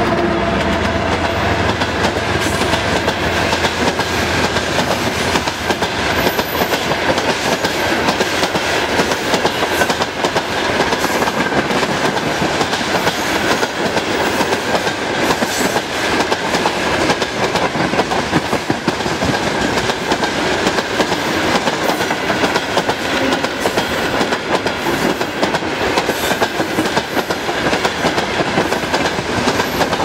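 A long freight train of open gondola wagons passing at speed: a steady rumble with continuous clickety-clack of wheels on the rails, and a faint high steady whine underneath. The hauling 2TE116UD diesel locomotive's engine note fades out over the first few seconds.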